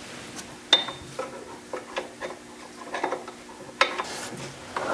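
Open-end wrench clinking and tapping against a brake line fitting and the surrounding metal: a handful of separate light clicks. The sharpest comes under a second in and rings briefly.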